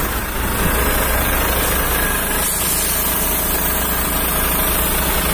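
Volvo FM 370 truck's diesel engine idling steadily at close range, a constant low rumble.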